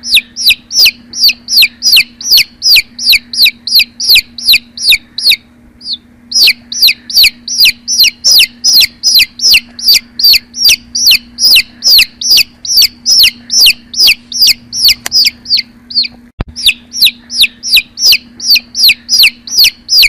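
Baby chick peeping loudly and continuously, about three high, downward-sliding peeps a second. The peeping pauses briefly about six seconds in, and again near sixteen seconds, where there is a sharp click.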